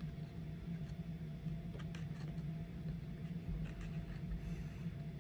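Quiet room tone with a steady low hum and a few faint, light ticks as a playing card is handled upright on a stack of books.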